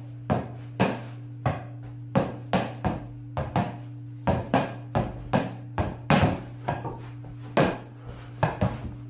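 A ping pong rally with a purple emoji ball: the ball is struck again and again by wooden paddles and bounces on the table, giving sharp knocks at an uneven two to three a second.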